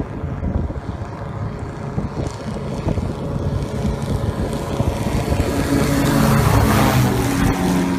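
Airfish 8 ground-effect craft running over the water: a rough engine and propeller rumble mixed with wind and spray noise, growing louder over the first six seconds as a steady engine hum comes through.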